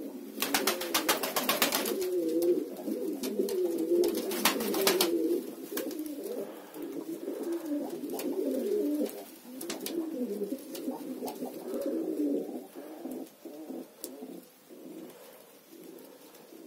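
Many domestic pigeons cooing together, with overlapping low warbling coos that carry on throughout and thin out over the last few seconds. Two bursts of rapid clatter cut in, about half a second in and again about four seconds in.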